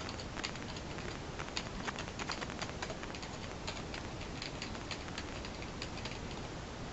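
Typing on a computer keyboard: a quick, uneven run of keystrokes, thickest in the first three seconds and sparser after, over a steady background hiss.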